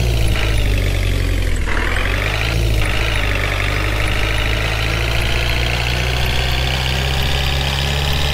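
Heavy truck engine running at idle, its pitch dipping and rising a couple of times in the first three seconds, then holding steady.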